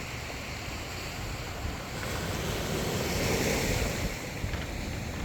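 Sea waves washing onto a pebble beach. One wave swells and breaks about two to four seconds in, then recedes, with some wind buffeting the microphone.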